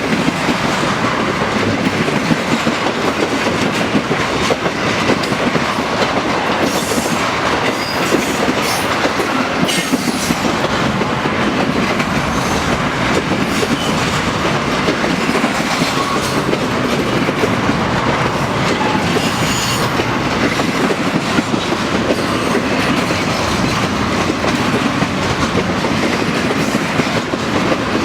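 Intermodal freight train cars rolling past, their wheels rumbling and clattering steadily on the rails, with a few brief high-pitched wheel squeals.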